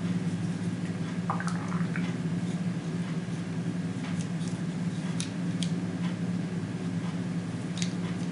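Scattered light clicks and handling noise from opening a Leatherman Blast multi-tool, over a steady low hum.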